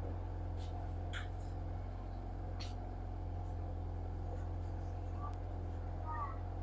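Steady low background hum with a few faint clicks; no speech.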